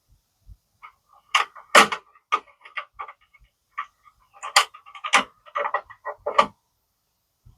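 A series of sharp clicks and clanks from a metal lighting-timer box and its parts being handled, in two clusters with short pauses between.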